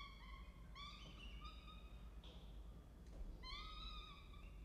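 Peregrine falcon chicks giving food-begging cries while being fed: a string of short, high cries, then a longer cry about three and a half seconds in.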